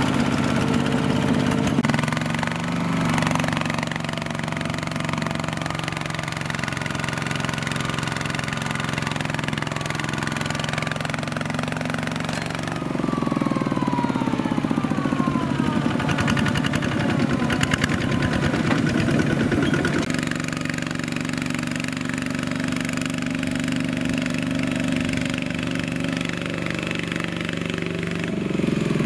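Single-cylinder Kubota diesel engine of a mini two-wheel tractor running steadily, then louder and rougher for several seconds around the middle and again near the end as it works harder.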